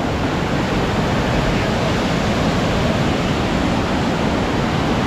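River rapids: white water rushing steadily down a sloping rock ledge, a loud, unbroken noise.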